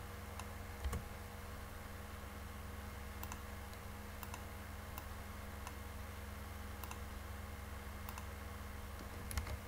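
A few faint clicks from a computer mouse and keyboard over a steady low hum.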